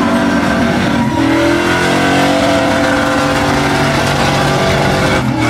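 Chevrolet Silverado pickup's engine revving hard during a burnout, its rear tyres spinning. The revs are held high, sagging briefly and climbing again about a second in and once more near the end.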